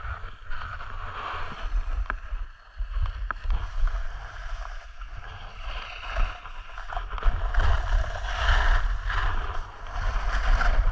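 Snowboard sliding and scraping over snow on a descent, the scrape swelling and easing with the turns, heaviest in the second half. Wind buffets the microphone underneath as a constant low rumble.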